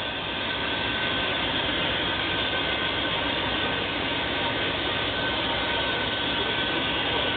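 Peppercorn A1 Pacific steam locomotive 60163 Tornado standing with a steady hiss of steam, without exhaust beats.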